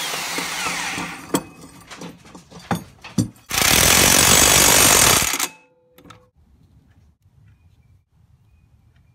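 Impact wrench hammering on a lawn mower's blade bolt in two loud bursts, the first in the opening second and a half and the second about halfway through, with metal clinks between. The blade is coming off because it was mounted upside down.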